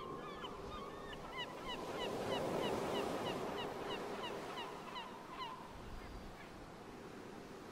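Nature ambience: a chorus of short chirping animal calls, several a second, over a steady wash of surf.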